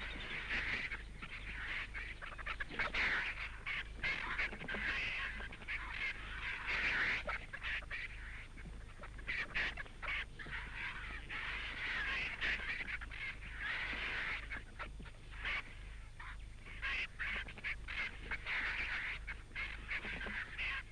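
Vultures squabbling over a carcass: a continuous racket of harsh, hissing squawks in irregular bursts as the birds fight over the remains.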